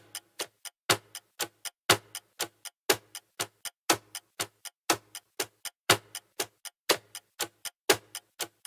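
Countdown timer ticking sound effect: even ticks about four times a second, every fourth tick louder, marking each second of the answer time.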